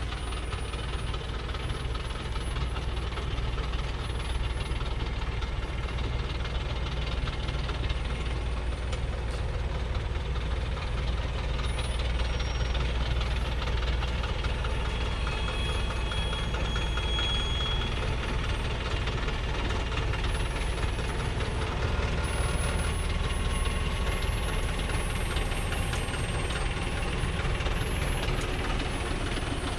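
Old Thaco Forland truck's diesel engine running steadily as the fully loaded truck crawls down a steep dirt slope, getting a little louder about halfway through.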